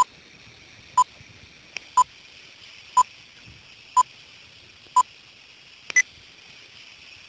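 Old film-leader countdown beeps: a short beep once a second, six times at the same pitch, then a higher beep about six seconds in. A steady film-projector hiss with a few faint crackle clicks runs underneath.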